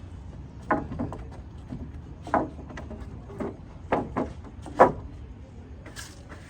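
A series of about eight sharp, irregularly spaced knocks on wood, the loudest near the end, from building work on a timber deck.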